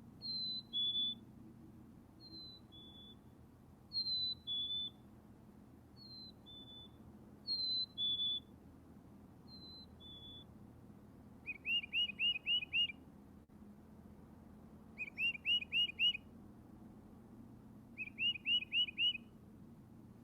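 Birdsong: a clear two-note whistle, high then a little lower, repeated about every two seconds, then three quick runs of five or six rising chirps.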